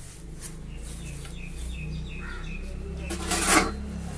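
Paddy straw being packed into a mushroom bag filling machine's cylinder, with a loud scraping rustle about three and a half seconds in as the press rod is pushed down into the straw. A low steady rumble runs underneath.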